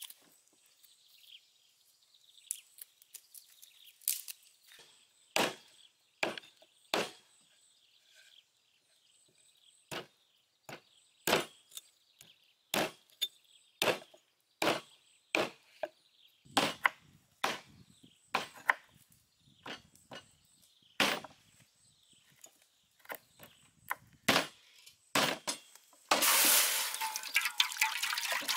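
A hatchet-shaped meat cleaver chopping through raw beef rib bones on a wooden chopping board: sharp, irregular chops about once a second. Near the end, water pours in a steady rush into a hot metal wok.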